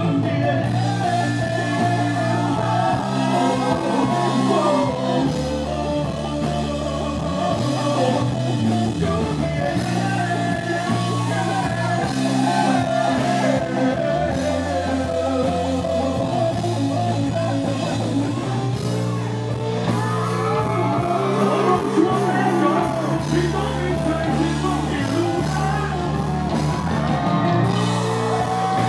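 Live rock band playing: electric guitars, bass guitar and drum kit, with a vocalist singing into a microphone.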